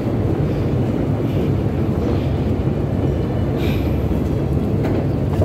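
A long metro escalator running: a steady low rumble with no change in pitch or level.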